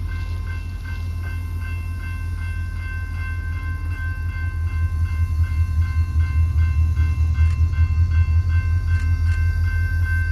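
Diesel freight train running past, with a low rumble that grows louder and pulses from about halfway through. Several steady ringing tones sit over it, with small ticks repeating about three times a second.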